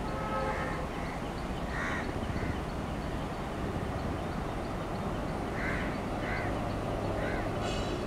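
Crows cawing several times, in short separate calls, over a steady low rumble from a WDM-3A diesel locomotive approaching in the distance.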